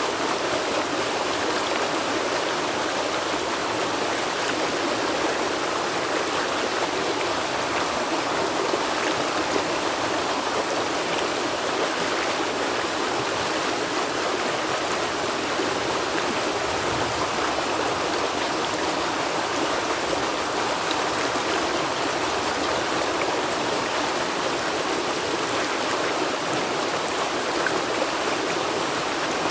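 River water flowing: a steady, even rush of water with little deep rumble.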